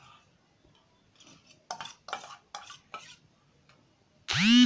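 A few soft brushing strokes of fingers scattering shredded cucumber over flatbread on a plate, about two seconds in. Near the end a loud electronic swoop with a sweeping pitch cuts in suddenly, the start of added music.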